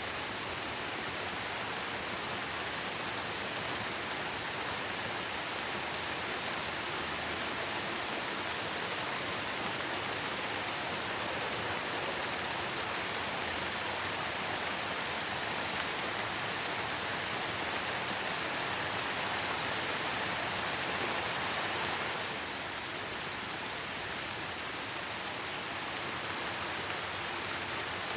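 Steady rain falling, an even hiss of many drops without a break. About three-quarters of the way through it turns slightly quieter.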